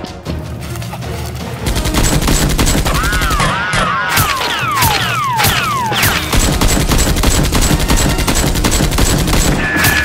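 Rapid automatic-gunfire sound effects, a dense fusillade of shots starting about two seconds in and running on, laced with repeated short falling whistles.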